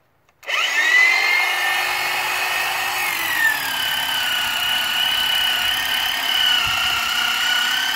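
Corded electric hedge trimmer switched on about half a second in, its motor whine rising quickly to speed. About three seconds in the pitch drops and stays lower as the blades cut through the clump of dead ornamental grass, then starts rising again near the end.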